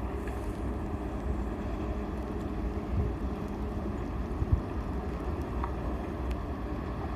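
Steady low hum of a KU 800/12 bucket-wheel excavator's machinery running, with wind on the microphone. Two brief knocks break in around the middle.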